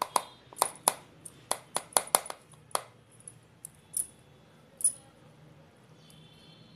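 Metal spoon clinking and scraping against a steel mixer-grinder jar and a bowl's rim while scooping out freshly churned butter: about a dozen quick clinks in the first three seconds, two more a little later, then they stop.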